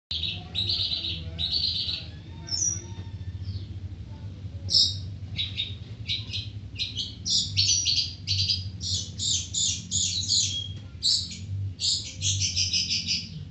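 Long-tailed shrike (cendet) singing: rapid runs of short, sharp chattering notes, sparse at first and then close-packed from about five seconds in, over a steady low hum.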